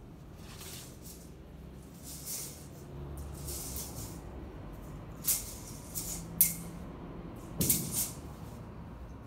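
Short, irregular swishing scuffs, the sound of shoes and clothing brushing on carpet as a person crouches, steps and turns. The loudest come about five, six and a half, and eight seconds in.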